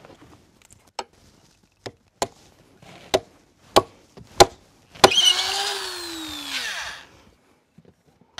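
Hammer blows driving tar-dipped oak dowels into bored holes in a timber frame: about seven sharp wooden knocks at irregular spacing, the loudest about five seconds in. After that last blow comes a noisy sound of about two seconds whose pitch falls.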